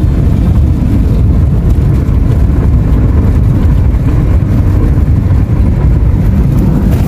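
Steady, loud low rumble of a car's engine and tyres on the road, heard from inside the cabin while driving.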